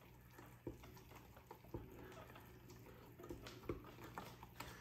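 Faint stirring of pancake batter with a spoon in a glass measuring cup, with a few soft taps of the spoon against the glass, over a low steady hum.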